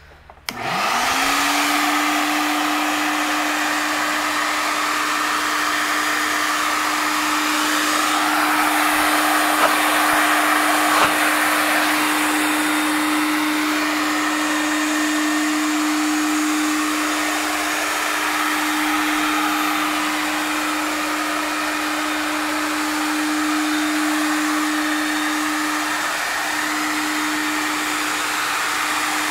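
Clarke Summit Pro 18SQ wet/dry shop vacuum switched on, its motor spinning up within a second to a steady hum under loud rushing air, then running continuously.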